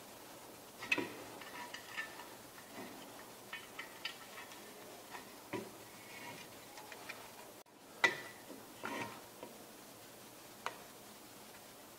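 Light, irregular clicks and taps of a small bracket and its hardware being handled and fitted onto a window-carrier extrusion, with a few sharper knocks, the loudest about a second in and again about eight seconds in.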